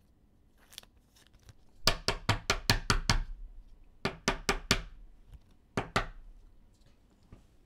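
Trading cards being tapped and set down on a hard tabletop: a quick run of about eight sharp taps, then four more, then two.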